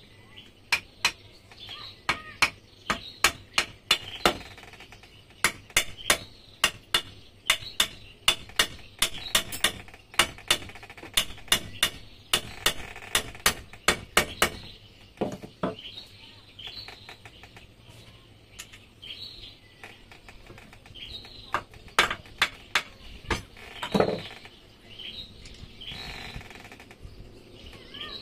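Sharp metallic taps, about one or two a second for the first half, then a few more and one heavier knock, as the gear case of a Yamaha 15 hp outboard's lower unit is worked on. Birds chirp throughout.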